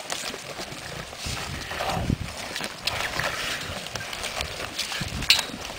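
A pride of young lions feeding on a cow carcass: irregular noises of chewing and tearing at the meat, with a sharp snap near the end.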